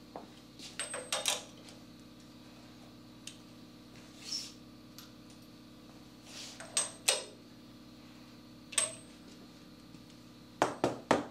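Scattered light metallic clinks and taps, in short groups every second or two, from hand tools and valvetrain parts as a Pontiac V8 engine is turned over by hand; a steady low hum runs underneath.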